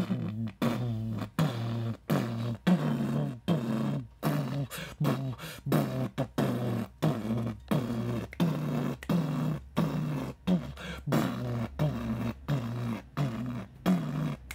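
A man beatboxing a steady beat with his mouth: short pitched booming vocal pulses, about three every two seconds.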